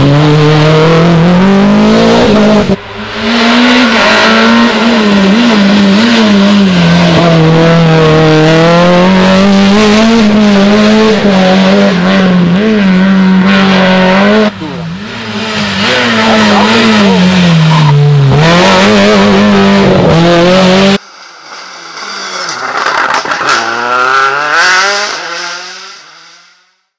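Rally car engines at full throttle, the pitch rising and falling as the drivers rev up, lift and change gear, with tyre squeal. Several short passes are cut together with sudden changes. The last car swells up and fades away to silence near the end.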